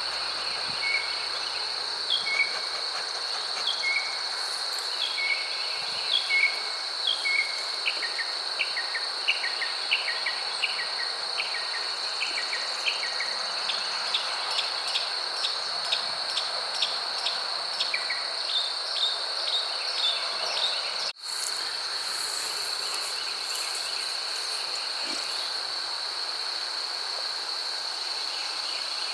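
A steady, high-pitched insect trill, with a run of short chirps repeated about once a second through the first two-thirds, coming faster near the end of the run. The sound drops out for a moment about twenty seconds in.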